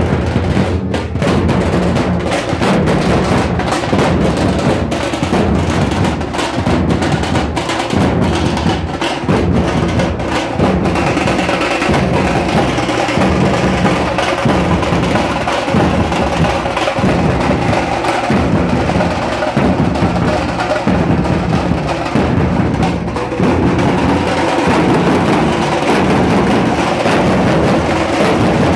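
Dhol-tasha troupe drumming: many large dhol barrel drums beaten with sticks together in a fast, driving rhythm, loud and continuous.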